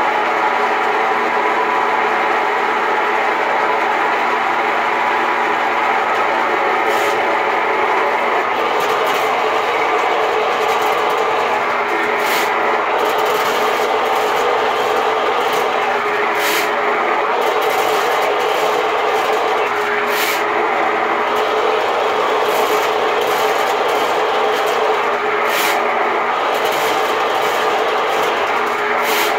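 RIDGID K-60 sectional sewer machine running, its electric motor spinning 7/8-inch cable down a clogged areaway drain with a steady mechanical whine. Sharp clanks from the spinning cable come every four to five seconds.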